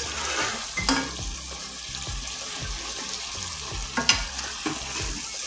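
Eggs and drumstick pieces sizzling in oily masala in a pan while being gently stirred, with a couple of sharp knocks of the utensil on the pan about one second in and about four seconds in.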